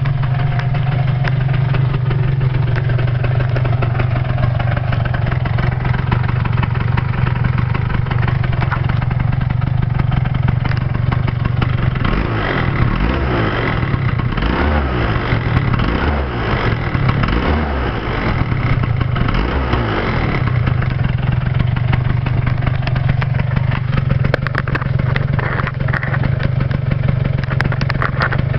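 Yamaha Grand Axis scooter's two-stroke single, fitted with a PG H4C expansion-chamber exhaust, idling steadily. From about twelve seconds in it is revved in a series of quick throttle blips, each rising and falling, for about eight seconds, then settles back to idle.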